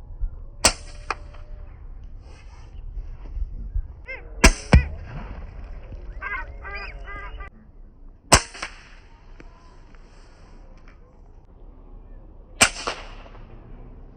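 Four sharp air rifle shots, roughly four seconds apart, each with a short ringing crack. Between the shots, birds give harsh calls, most of them around the middle.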